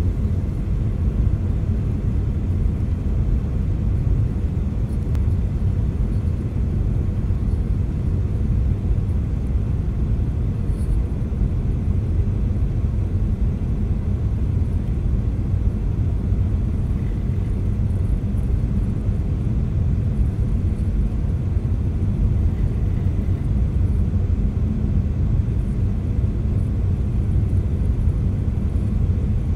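Steady low cabin rumble of a Boeing 737-900ER on final approach, the mix of its CFM56-7B engines and airflow over the fuselage heard from a seat over the wing, with no breaks or thumps.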